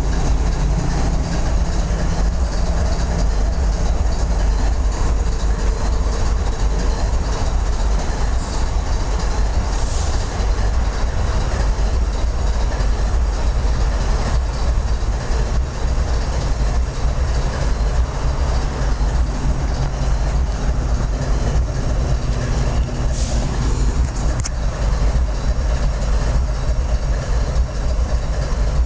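Diesel freight locomotives rolling slowly past: a steady low engine rumble from the high-hood road switchers and the GE ES44AC, with wheels running on the rails.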